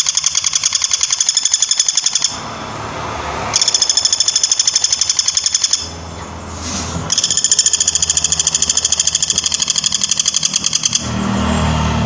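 Woodpecker calling a rapid, rattling series of high notes, given in three bursts of two to four seconds with short breaks between them.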